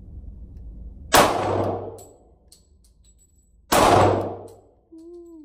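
Two shots from a Smith & Wesson M&P Shield .45 ACP pistol, about two and a half seconds apart. Each is loud, with a ringing echo off the indoor range that dies away in under a second.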